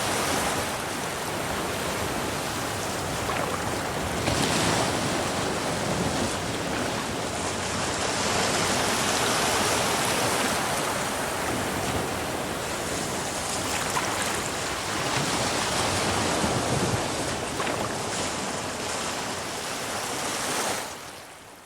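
Ocean waves breaking on a shore: a steady surf noise that swells and ebbs every few seconds, fading out near the end.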